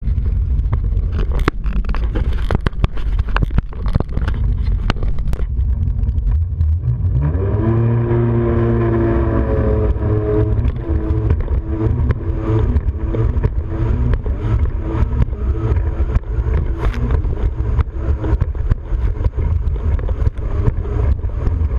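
Jet ski engine running on open water, with water rushing and slapping against the camera for the first several seconds; about seven seconds in the engine note rises as it revs up, then holds steady.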